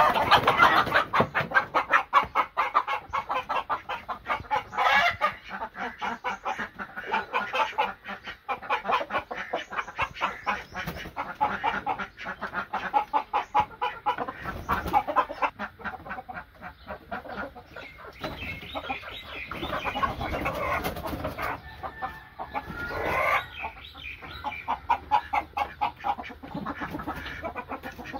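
Desi chickens clucking: a rapid, continuous run of clucks with a few louder calls standing out.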